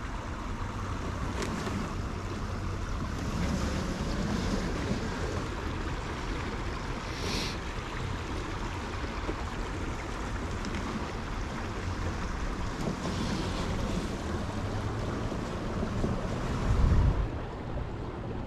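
A swollen brook rushing steadily, running high like a river, with wind buffeting the microphone. A brief low thump comes near the end.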